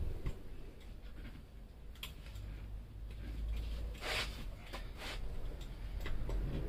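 Hand tool working screws on metal: soft scraping and rubbing with scattered clicks, the loudest scrape about four seconds in.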